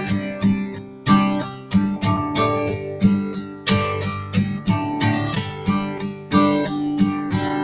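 Acoustic guitar strummed in a steady rhythm, chords ringing between strokes, as an instrumental passage with no singing.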